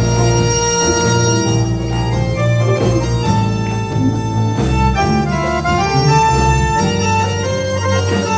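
Jazz orchestra playing: sustained chords over a bass line that steps from note to note, with regular cymbal or drum hits.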